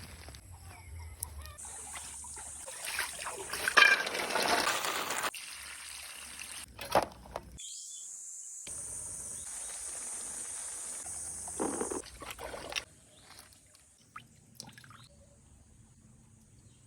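Water pouring and trickling, in several short stretches that change abruptly.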